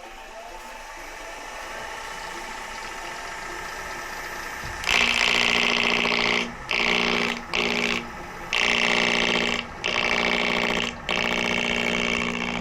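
Wood lathe turning a lignum vitae bowl blank while a gouge cuts the wood. From about five seconds in there are six separate passes of a second or so each, every one a loud cutting hiss over a steady hum, with short pauses between them.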